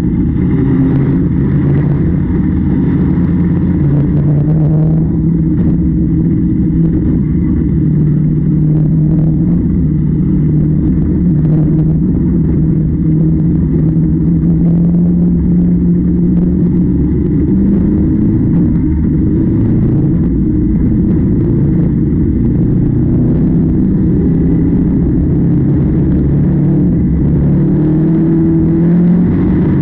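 Heavy harvest machinery engine running steadily, a loud continuous hum whose pitch wavers slightly.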